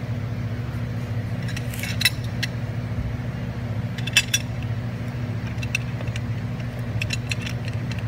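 Light metallic clinks of a steel wrench being handled and set against a steel hex cap: a few around two seconds in, a cluster around four seconds, and more near seven seconds, over a steady low hum.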